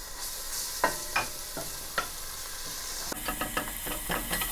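Garlic sizzling in a spoonful of hot oil in a pan, with a utensil stirring it and clicking against the pan, a few times early and more rapidly in the last second and a half.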